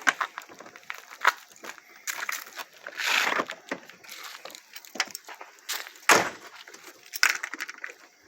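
A run of knocks, clicks and rustling as things are handled and moved about inside a car, with a louder thump about six seconds in.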